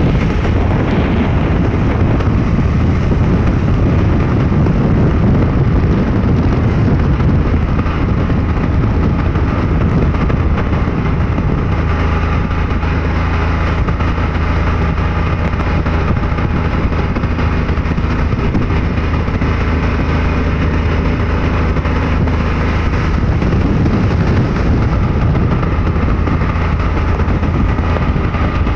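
An open-sided vehicle's engine running steadily at road speed, under a heavy rush of wind buffeting the microphone.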